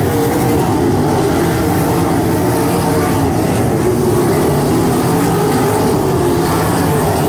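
A pack of 305 winged sprint cars racing around the track, their small-block V8 engines running hard together in one steady, loud engine noise.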